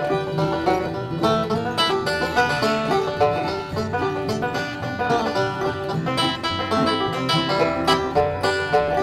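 Bluegrass banjo picking: a fast, unbroken run of plucked notes.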